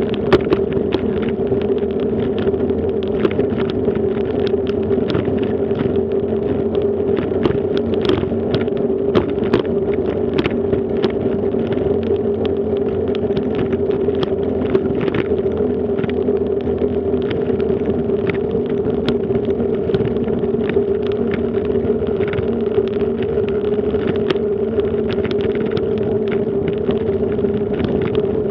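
Bicycle rolling along a brick-paved path: a steady rolling hum with frequent short rattling clicks from the bike jolting over the paving.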